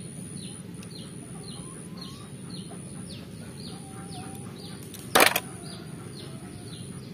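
A bird repeating a short falling chirp about twice a second, over a steady high-pitched whine that breaks off now and then. A brief clatter about five seconds in is the loudest sound.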